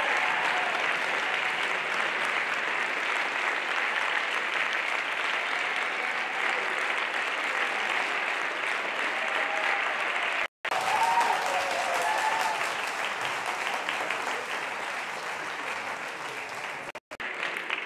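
Audience applauding steadily in a hall, with a few voices calling out about two-thirds of the way through; the clapping gradually thins out toward the end. The audio cuts out briefly twice.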